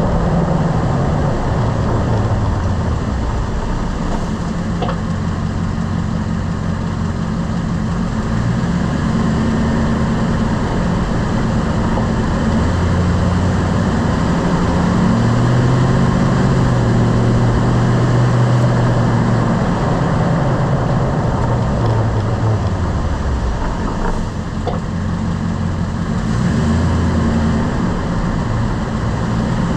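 Lifted truck driving: steady engine and road noise, the engine's pitch rising and falling. A faint knock comes about five seconds in and another around twenty-four seconds in.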